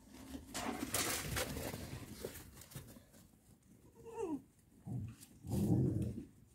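Boxer-Malinois mix puppies at play: a rustling noise in the first half, a short falling whine about four seconds in, and a short low growl near the end.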